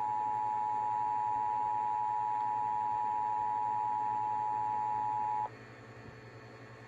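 Emergency Alert System two-tone attention signal (853 and 960 Hz together) played back from an EAS logger's stored audio: a steady, even dual tone that cuts off suddenly about five and a half seconds in, leaving only a low hum.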